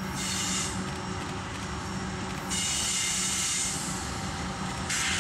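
Freight train rolling past, steel wheels on rail giving a steady rumble with a low hum. Over it come three bursts of high-pitched wheel squeal: briefly about half a second in, a longer one from about two and a half seconds to nearly four, and another at the very end.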